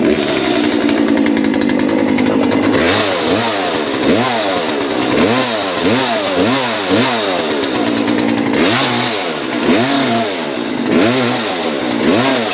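Corded electric chainsaw running. It holds a steady pitch for about the first three seconds, then its pitch rises and falls over and over, about one and a half times a second, as it speeds up and slows down through the cut.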